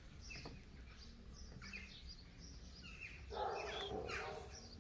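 Faint outdoor background with small birds chirping now and then, and a rough, noisy sound lasting about a second near the end.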